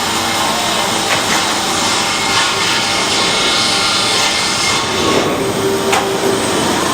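A sawmill saw cutting through a log to produce rough 2x4 lumber: a loud, steady sawing noise that does not let up.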